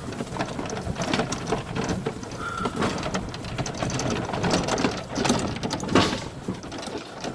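A small vehicle rattling and clattering as it bounces over rough, uneven ground, with a run of irregular knocks and one louder bang about six seconds in.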